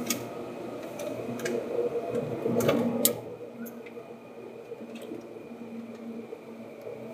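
Inside a Seibu 2000 series commuter train carriage: a low hum with scattered sharp clicks and rattles, growing louder with a cluster of clicks around three seconds in.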